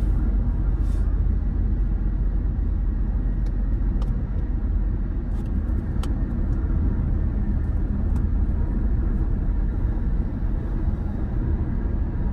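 Steady low road and engine rumble inside a moving car's cabin, with a couple of faint clicks.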